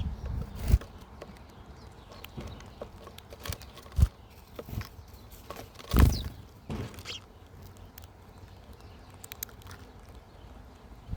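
Wild birds at a backyard feeder: scattered short, high chirps, with a few sudden low thumps and flutters, the loudest about six seconds in.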